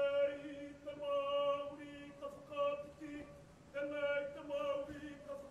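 Māori chanting by a kapa haka voice, held on a nearly steady pitch in short phrases with brief breaks between them.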